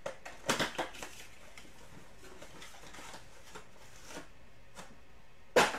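Hands opening a Panini Prizm football card retail box and handling its foil packs: cardboard and foil rustle and rip in a quick cluster of short strokes about half a second in, with lighter handling noises after. Near the end there is one short, sharp, loud rip or knock.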